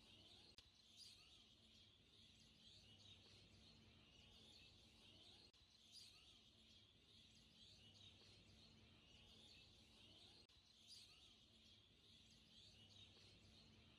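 Near silence, with faint bird chirps in the background throughout.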